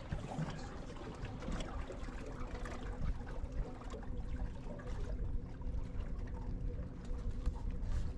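Water trickling and splashing along a fishing boat's hull, over a steady low motor hum.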